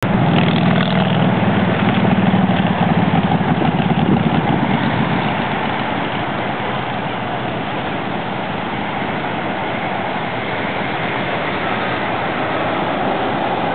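Road traffic on the street below: a vehicle engine is loudest for the first five seconds or so, then it settles into a steady traffic hum.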